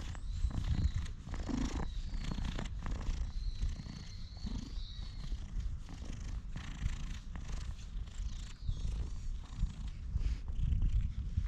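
Stray cat purring steadily close to the microphone as it is stroked, with brief rubbing noises from the hand and fur. Its contented state shows: it leans into the hand with its eyes closed.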